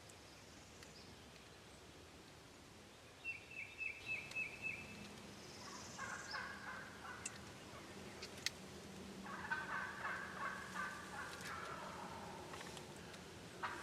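Wild turkey toms gobbling, faint, two long rattling gobbles about six and nine seconds in, after a quick run of high notes about three seconds in.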